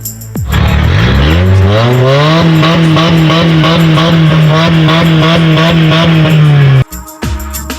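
A car engine revving up over about two seconds and then held at high revs while its tyres squeal, as in a car doing donuts. It cuts off suddenly near the end.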